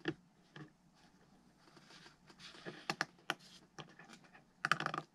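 Faint scattered clicks and taps of small elevator linkage parts being fitted by hand to a foam RC airplane's tail, with a quick run of louder clicks near the end.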